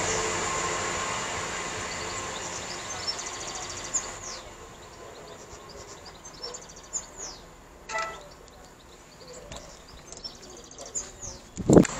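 East Midlands Railway Class 170 Turbostar diesel unit slowing to a stop at the platform, its running noise and a high squeal fading away over the first few seconds. After that the station is quiet, with a few bird chirps and a sharp thump near the end.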